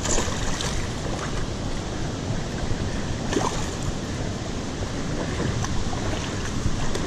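Steady rush of shallow river current running over rocks, with a few faint taps.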